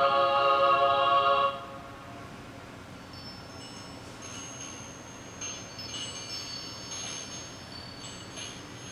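A recorded angelic choir chord played back by a greeting-card sound module stops about a second and a half in. A few seconds later come faint, high tinkling chimes from the same recording, struck several times and left ringing.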